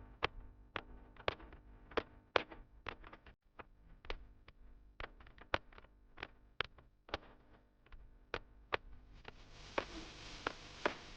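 Quiet electronic background music made of sparse, sharp clicking percussion. A hiss swells in about nine seconds in as the track builds.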